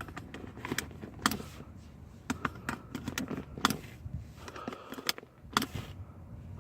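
Metal seat belt latch plate clinking and clicking against a buckle in a series of irregular sharp clicks. It is being pushed into the wrong buckle, where it will not lock.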